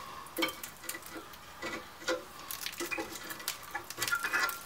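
Irregular light metallic clicks, knocks and scrapes as a stuck brake pad is worked loose from a 2004 Jeep Liberty's seized rear brake caliper, with a quick cluster of clinks near the end.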